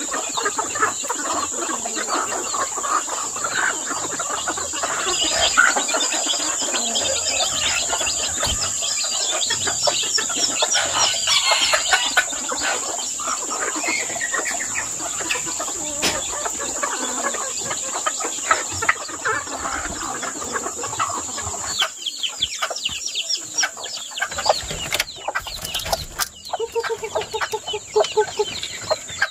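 A flock of chickens clucking and chirping busily as they feed, with a rooster crowing now and then, over a steady high-pitched hum. A few sharp clicks come near the end.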